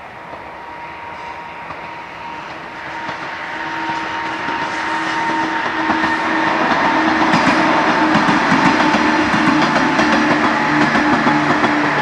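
JR 103-series electric commuter train approaching and passing, its running noise growing steadily louder over the first six seconds, with steady motor tones and a rapid clatter of wheels over the rails once it is close.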